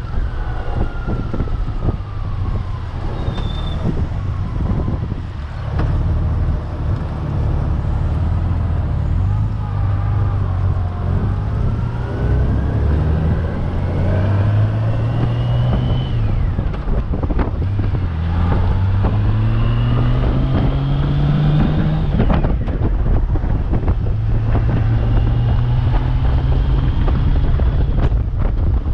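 Honda Gold Wing touring motorcycle engine accelerating up through the gears, its note climbing steadily in pitch and twice dropping back as it shifts up. Wind rushes over the microphone throughout.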